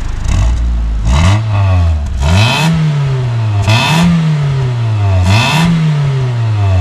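Mitsubishi Lancer CE coupe's four-cylinder engine revved four times through its stock exhaust, heard close at the tailpipe. Each rev climbs quickly and then falls back slowly, and the engine settles to idle near the end.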